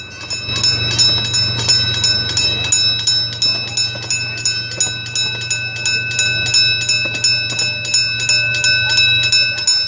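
Railroad crossing signal bell ringing in rapid even strokes, about four a second, with a low steady hum underneath.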